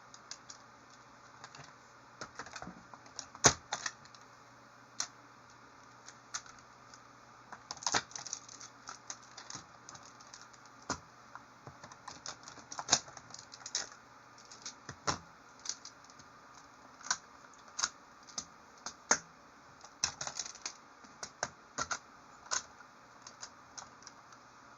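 Plastic magnetic building tiles clicking and clacking together as they are handled and snapped into place, in irregular sharp clicks, a few a second with short pauses.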